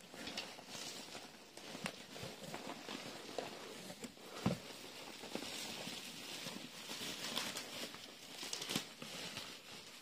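Bubble wrap and plastic packaging crinkling and rustling as hands dig through a cardboard box, with scattered sharper cracks and knocks, the loudest about four and a half seconds in.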